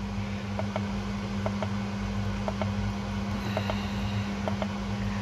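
Steady low electrical hum, with light clicks in pairs about once a second as the keypad buttons of a Foxwell BT-780 battery analyzer are pressed to step through its menus.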